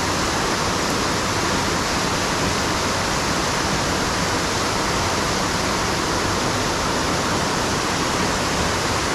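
Waterfall: a steady, unbroken rush of falling water close to the microphone.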